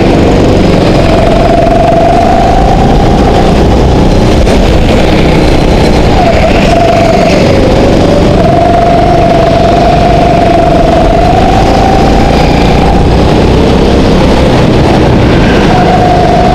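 Go-kart engine heard from on board, running hard through a lap. Its pitch dips as the throttle is lifted for corners, at the start and again about halfway, then climbs back as it accelerates.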